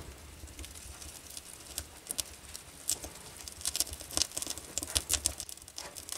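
Freshly lit wood fire of kindling and birch logs crackling in a sauna stove's firebox, with irregular sharp pops that come thicker about four to five seconds in.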